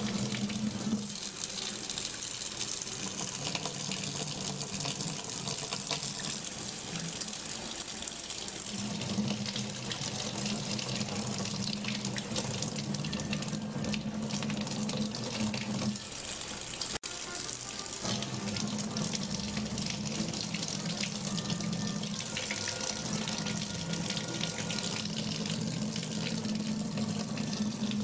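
Kitchen faucet running in a steady stream, splashing over a cat's head and onto the counter, with a low steady hum underneath in long stretches. The sound drops out for an instant about 17 seconds in.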